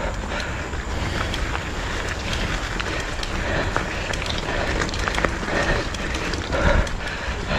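Mountain bike rolling along a dirt trail: steady tyre noise on dirt and gravel with frequent sharp clicks and rattles from the bike, and wind buffeting the microphone.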